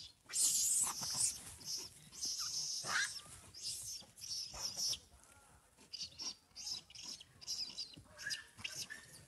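A large troop of monkeys feeding on scattered popcorn, with short high squeaks and chirps, one rising squeal about three seconds in, over repeated brief rustling.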